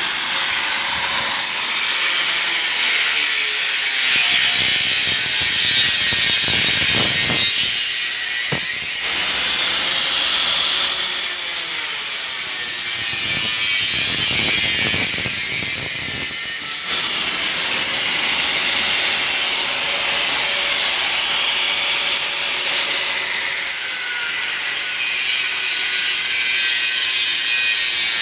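A power tool cutting into a perforated metal cable tray: a steady, loud, high-pitched cutting noise, with two stretches of heavier, rougher cutting.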